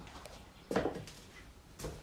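Two footsteps scuffing on a floor littered with debris, about a second apart, over quiet room tone.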